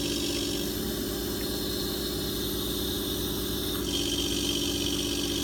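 A pump with a built-in bypass relief valve, running steadily: a constant hum with a hiss over it, shifting in character and getting slightly louder about four seconds in. This is bypass engagement noise, the bypass valve opening as discharge pressure nears its 60 psi setting.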